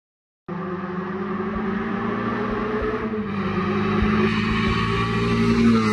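Rally car engine pulling hard on a stage, cutting in suddenly about half a second in. Its pitch rises slowly and it grows steadily louder as the car approaches, loudest near the end as it draws level.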